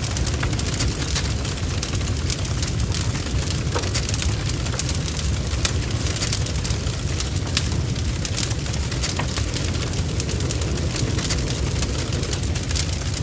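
Large barn fire burning, recorded from inside the blaze: a steady low rumble with frequent sharp crackles and spitting.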